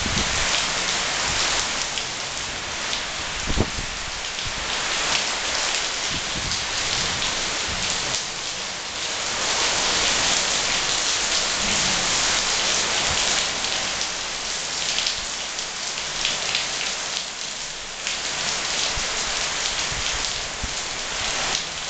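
Heavy rain falling steadily, a dense, even hiss of rain on surfaces, with a single sharp knock about three and a half seconds in.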